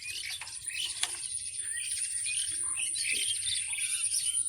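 Many small birds chirping and twittering in quick, overlapping calls, with a steady high-pitched tone running underneath.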